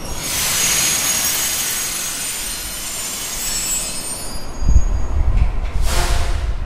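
Vintage New York City subway train pulling away, its steel wheels squealing high and hissing on the rail for about four seconds as it fades. Then a low rumbling rush of air buffets the microphone, with one louder whoosh near the end.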